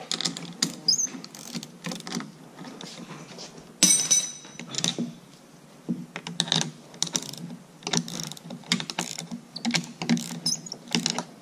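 Hand wrenches clicking and clinking against a steel cab-door bracket as its bolt is adjusted and tightened, in quick irregular clicks with one louder ringing metal clink about four seconds in.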